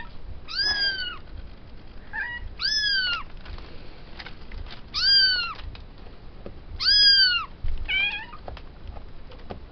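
A cat meowing repeatedly: four loud, high meows about two seconds apart, each rising then falling in pitch, with a few shorter, softer mews between them.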